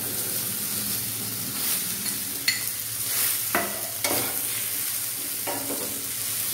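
Boiled taro (arbi) pieces sizzling in hot oil and spices in a frying pan. The sizzle sets in suddenly as they go in and stays steady, while a steel spoon stirs them, knocking and scraping against the pan a few times.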